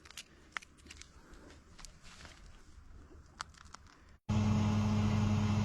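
A few faint clicks and rustles, then after a sudden cut about four seconds in, the steady drone of a three-wheeled camper's motor running.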